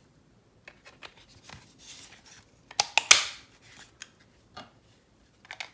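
Plastic Raspberry Pi enclosure pieces being handled and snapped together around the board: scattered small clicks and rubbing, with one loud snap about three seconds in.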